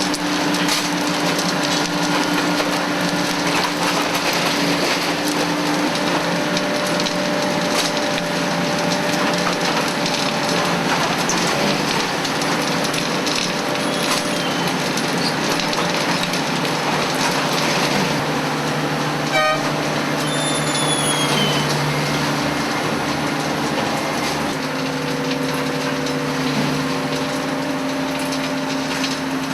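Railway machinery running: a steady mechanical noise with a low hum throughout, and a few brief high squeals that fall in pitch near the middle.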